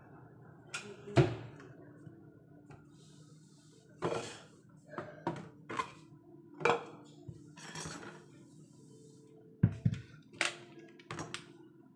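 Kitchen things handled on a countertop: a plastic mixing bowl and other items knocked, shifted and set down in about a dozen scattered clatters. The loudest knocks come about a second in and near the end.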